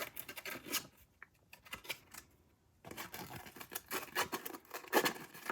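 Sandpaper rubbed on a 3D-printed plastic part in short, uneven scratchy strokes, smoothing the sloped end pieces. There is a pause of nearly two seconds about a second in.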